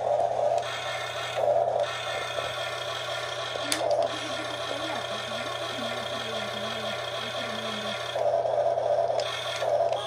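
Toy RC excavator's small electric gear motors whirring in several short spells as the boom, arm and bucket move, over a steady electrical hum, with a sharp click about four seconds in.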